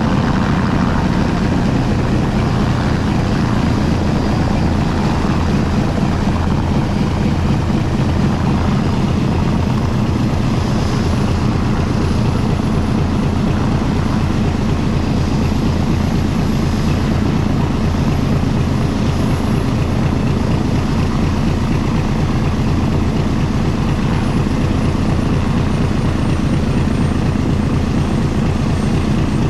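Aircraft engines running steadily: a loud, deep, even drone with a fast beat. A faint high whine comes in partway through and drops slightly in pitch near the end.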